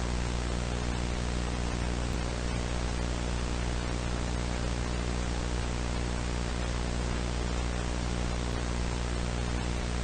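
Steady hiss of static with a low electrical hum under it, unchanging throughout.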